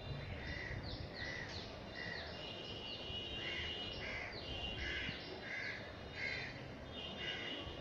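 Several birds calling at once: a run of short calls repeating about twice a second, mixed with quick high chirps that fall in pitch, over a low steady background noise.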